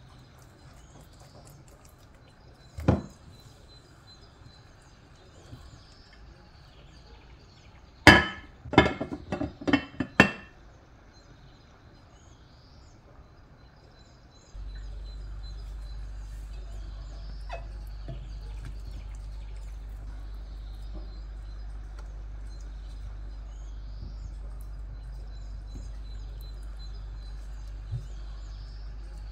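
Glass lid clinking against a glass baking dish as it is set on, a quick cluster of sharp clinks lasting about two seconds, after a single knock earlier. Faint bird chirps in the background, and a steady low hum from about halfway on.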